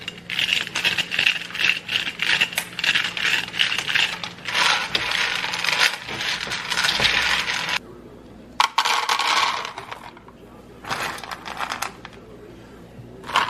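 Kernels of field corn being shelled off the ear with a hand corn sheller, rattling into a metal pan in a dense run of small clicks for about eight seconds, then a few shorter rattles as the shelled kernels are handled. The corn is still wet, by the grower's feel.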